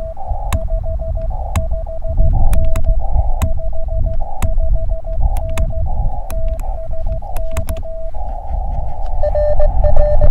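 Morse code (CW) from a portable ham transceiver: a single mid-pitched tone keyed in quick dots and dashes, with bands of receiver hiss in the gaps, sharp clicks and a low rumble underneath. Near the end the hiss runs on and a fainter, slightly lower-pitched Morse signal comes up in it.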